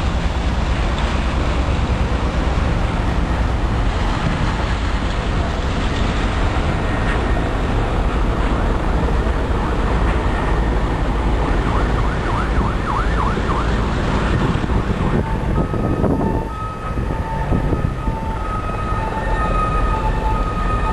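Emergency vehicle siren sounding a two-tone hi-lo pattern, coming in about three-quarters of the way through, over a steady rushing noise of traffic and wind.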